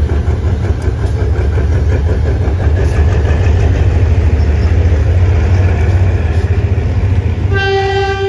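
GE GEA-class diesel-electric locomotive's engine running with a heavy, steady rumble as it moves along the track. About seven and a half seconds in, the locomotive's horn starts sounding one steady note.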